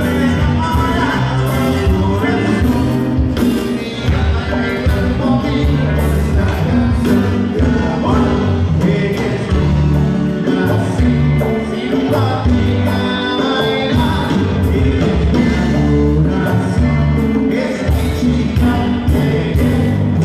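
Live band playing Latin dance music with a male lead singer: congas, drums, bass, electric guitar and keyboard under a sung vocal line, loud and continuous through the PA.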